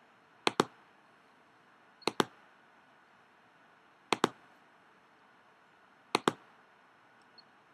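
Computer mouse clicks: four quick double clicks, about two seconds apart, with near silence between.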